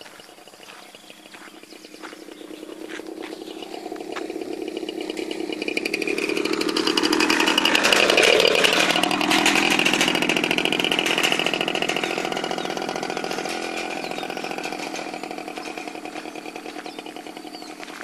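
Small motorcycle towing a side-mounted cargo cart passing by: the engine grows louder over several seconds, is loudest about eight seconds in as it goes past, then fades slowly as it rides away.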